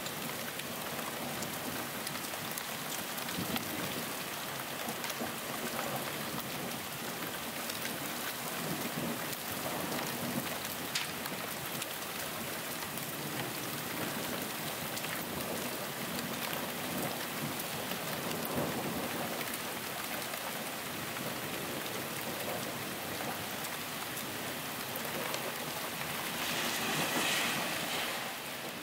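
Steady heavy rain, drops hitting a flooded pavement. Near the end, water splashing off an overflowing roof gutter grows louder.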